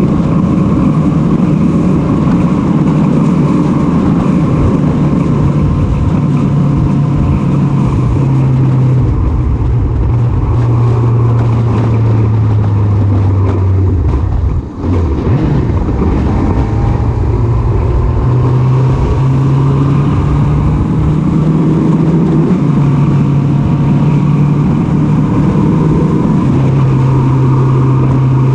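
Motorcycle engine running at road speed with wind and road noise rushing past. Its note steps up and down in pitch several times, with a brief drop in level about halfway through.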